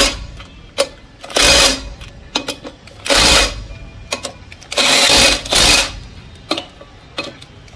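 Power impact wrench run in three short bursts, tightening the clutch pressure-plate bolts on a Mahindra Jeeto engine, with light metal clicks between bursts.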